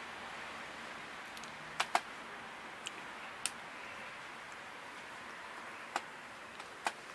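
Keys of a Citizen CT-600 desktop calculator pressed one at a time to test it, about six short plastic clicks at uneven intervals.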